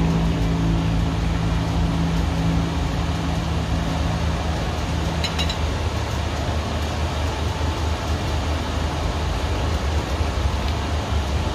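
Sirloin steak sizzling in a hot pan: a dense, steady crackling hiss over a low hum. A low steady tone underneath stops about halfway through.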